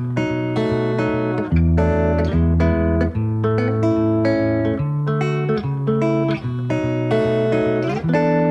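Background music led by plucked guitar, with notes struck at a steady pace.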